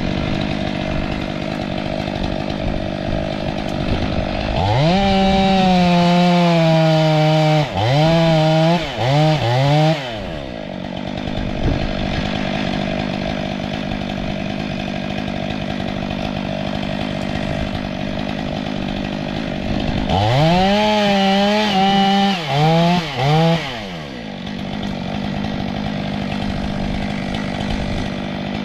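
STIHL MS 500i fuel-injected two-stroke chainsaw running. Twice it is revved up to full throttle and held for a couple of seconds, then blipped three times in quick succession before dropping back.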